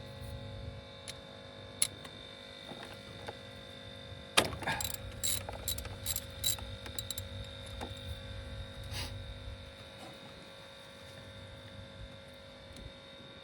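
Socket wrench and metal tools clicking and clinking while working the last spark plug out of a 2009 Lexus IS250 engine: a single click about two seconds in, then a quick cluster of sharp clicks a little before the middle and one more later, over a steady hum.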